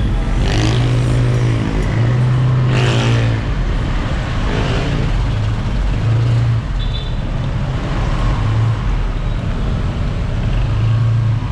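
A motor engine running, with a loud, steady low rumble and the pitch rising and falling during the first few seconds.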